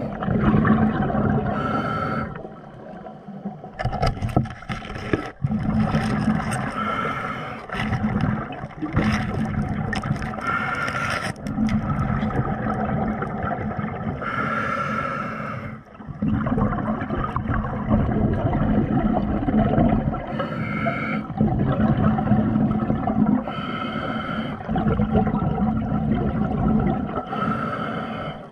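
A diver's breathing heard underwater: bursts of exhaled bubbles rushing out about every four seconds, over a steady low hum and water noise.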